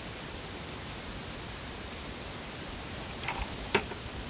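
Open fire burning a heap of clothing, nylon rain pants among it: a steady rushing hiss with two sharp crackles near the end, the second louder.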